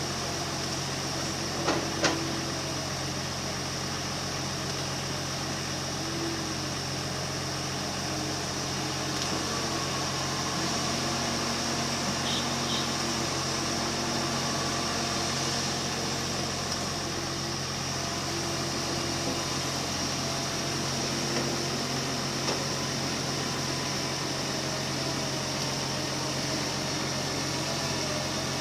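Kobelco 330 excavator's diesel engine running steadily while working, with a few faint shifting tones. Two brief knocks come about two seconds in.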